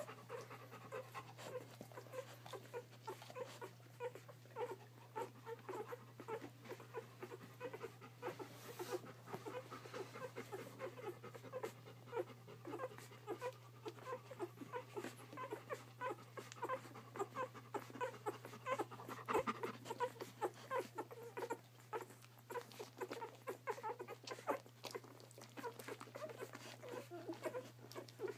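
A litter of newborn Bernese mountain dog puppies nursing, making a continuous stream of many small squeaks and grunts as they suckle. A steady low hum runs underneath.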